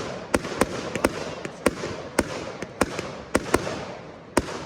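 Fireworks going off in a rapid barrage: about two sharp bangs a second over a continuous crackle.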